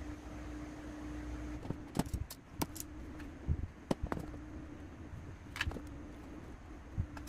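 Light clicks and taps of wires and small parts being handled against a PVC box and tabletop, a cluster of them about two to four seconds in and a few more later, over a low steady hum that stops after the first second and a half.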